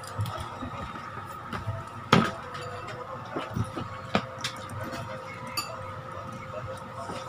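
Light clicks and clinks as a stand fan's piano-key speed switch and its wires are handled and worked on, the sharpest knock about two seconds in and another about four seconds in, over a steady faint hum.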